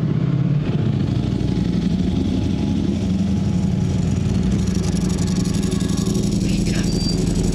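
Ducati Streetfighter V4 S motorcycles, V4 engines running at low revs with a steady, even rumble as the bikes roll away slowly.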